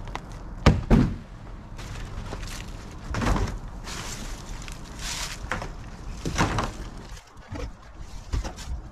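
Thumps, knocks and footsteps of someone moving about inside a fibreglass runabout boat while shifting the engine cover and debris. Two loud thumps come about a second in, followed by scattered knocks and scraping, rustling sounds.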